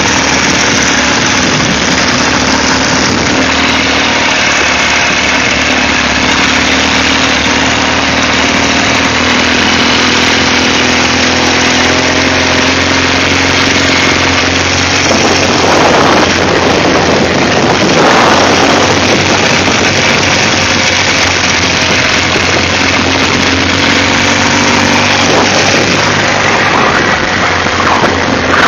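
Ural sidecar motorcycle's flat-twin engine running steadily while riding along a gravel road, with a louder rush of noise about halfway through.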